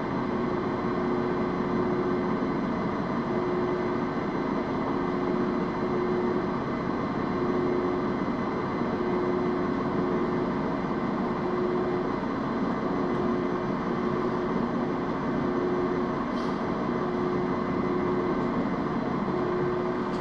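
Metal-turning lathe running steadily, with a faint tone that comes and goes every couple of seconds over the machine noise.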